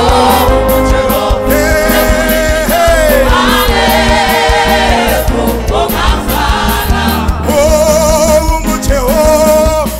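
Gospel song sung in Zulu: a lead voice and choir holding notes with vibrato over a band with a steady bass line and drums.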